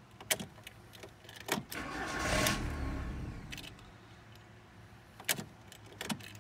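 Sharp clicks of the key and ignition switch, with a swell of mechanical noise lasting about two seconds in the middle: a 2002 VW Jetta TDI being cranked without starting. The owner suspects the no-start is immobilizer-related, though he thinks the cause may be more complex.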